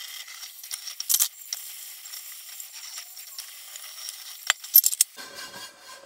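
Tap water running into a stainless steel sink while a nonstick skillet is washed, with a few sharp clinks of the pan, the loudest just before five seconds in. Near the end the water stops and a cloth towel rubs over the pan.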